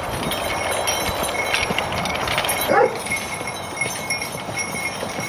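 Draught horses pulling a plough, hooves clopping over a steady noisy background, with a short cry about three seconds in.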